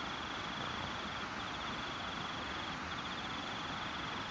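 Cricket trilling: a high, finely pulsed trill repeated in runs of about a second and a half with short breaks, over a steady hiss.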